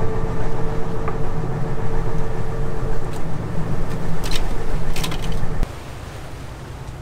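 Sportfishing boat's engine running with a steady low drone, with a few sharp clatters at the cooler about three to five seconds in. The drone cuts off suddenly near the end, leaving quieter wind and water noise.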